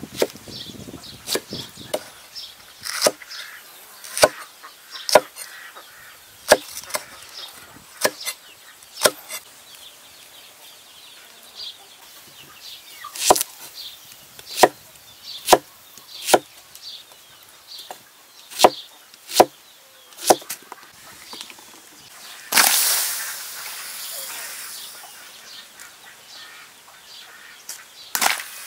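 A large knife chopping chilies and onion on a wooden cutting board: sharp knocks of the blade against the board, roughly one a second, with pauses between runs. A short rushing noise breaks in for a couple of seconds about three quarters of the way through.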